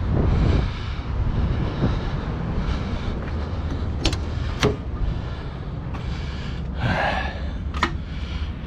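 Latch clicks of a fire engine's driver door being opened: two sharp clicks about four seconds in, then a short scraping noise and another click near the end as the door swings open and someone climbs into the cab, over a steady low rumble.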